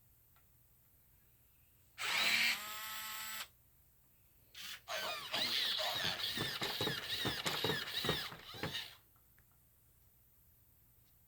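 Robosapien V2 toy robot running after a full rewire: a short pitched electronic sound about two seconds in, then its geared motors whirring and clicking for about four seconds before stopping.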